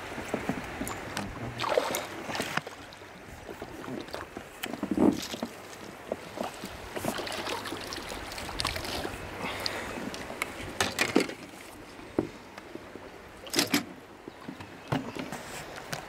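Water splashing and dripping, with scattered knocks and rattles, as a hooked smallmouth bass is played at the surface and scooped into a landing net.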